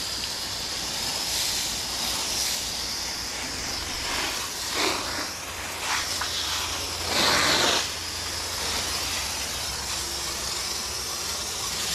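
Garden hose spray nozzle hissing steadily as water jets onto a motorcycle's bodywork, with louder surges of spray about five and seven seconds in.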